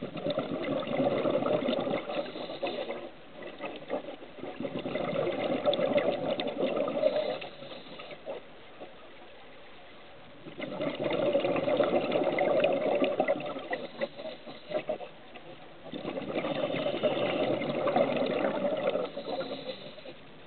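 A scuba diver's exhaled breath bubbling out in four long crackling bursts with short pauses between, heard underwater.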